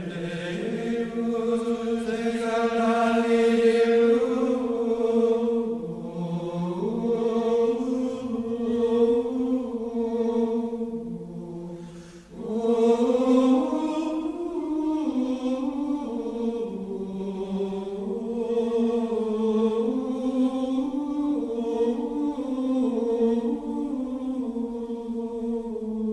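Background music: slow, unaccompanied chant with long held notes moving step by step, and a short break about twelve seconds in.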